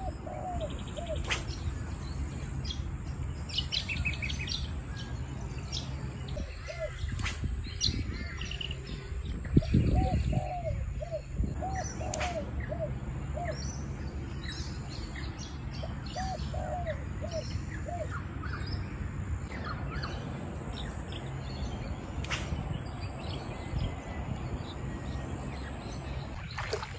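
Birds calling through the bush: little runs of short arched notes and higher quick chirps, over a steady low background rumble, with one louder low thump about ten seconds in.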